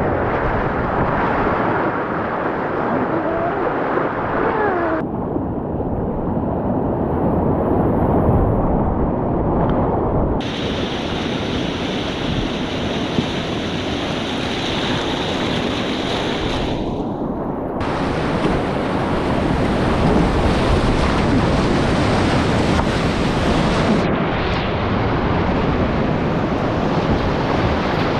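Steady rush of whitewater in a shallow, rocky river rapid, heard from a kayak running it.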